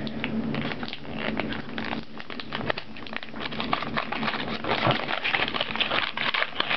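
Wrapping of a mystery pack of hockey cards crinkling and rustling as it is torn open by hand, a dense run of small crackles throughout.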